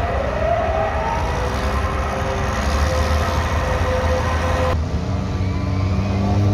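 Diesel engines running at a truck pull: a low rumble with a whine that rises in pitch near the start. After a sudden cut, a diesel pickup's engine runs low and steady and starts to rise in pitch near the end as the truck revs up on the line.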